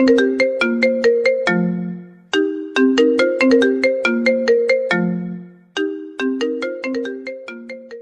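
Mobile phone ringtone melody of short, quickly fading notes, the same phrase repeating about every three and a half seconds.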